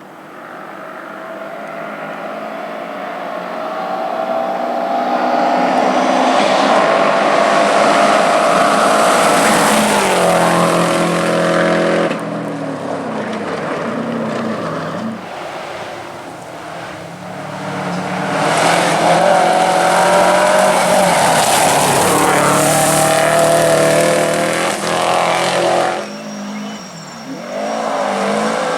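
Subaru WRX rally car's turbocharged flat-four engine driven hard: it rises in pitch through the first ten seconds, falls away and drops through lower revs, then runs flat out again before cutting off suddenly near the end, with some tire squeal.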